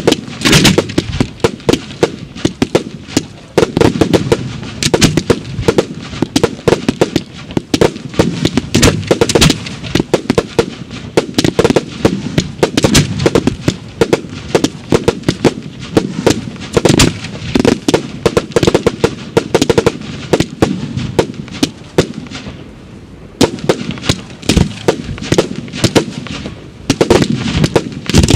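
Fireworks display of mortar-fired shells, a dense barrage of bangs in quick succession, with a brief lull a little past twenty seconds in.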